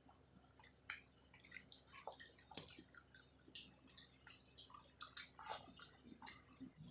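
Faint wet eating sounds from a meal of rice, dal and curry: a string of small smacks and squelchy clicks, several a second, with no pauses.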